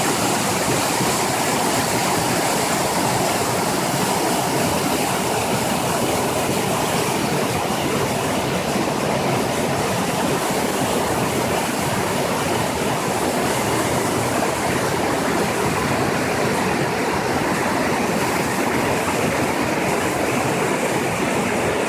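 Flowing water rushing steadily, a continuous even noise with no let-up.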